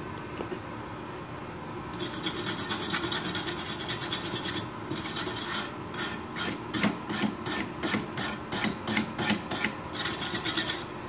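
Wire brush scrubbing a fresh flux-core MIG weld on thin galvanized steel sheet. It starts about two seconds in with a steady scrub, then changes to quick back-and-forth strokes, about two to three a second.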